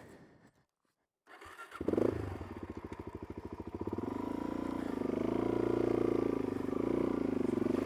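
Single-cylinder four-stroke engine of a 2005 Suzuki DR-Z400S dual-sport motorcycle. It comes in after a second or so of silence, jumps up about two seconds in with a fast pulsing beat, then runs steadier and louder, its pitch rising and dipping as the bike is ridden along the trail.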